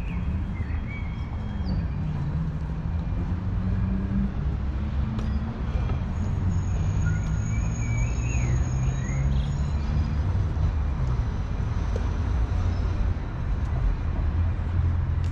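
Street ambience: a steady rumble of cars passing on a nearby road, with a few short bird chirps near the start and again about halfway through.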